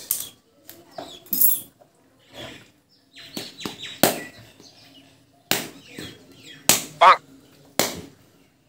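A blade chopping into cocoa pods: a series of about eight sharp, irregularly spaced knocks with quiet gaps between them.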